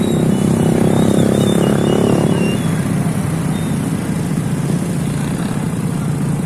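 An engine running steadily, louder in the first two and a half seconds and then easing off a little.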